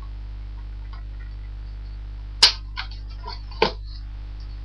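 Cardboard and plastic packaging being handled and pulled from a box: a few sharp snaps and clicks, the loudest about two and a half seconds in and another about a second later.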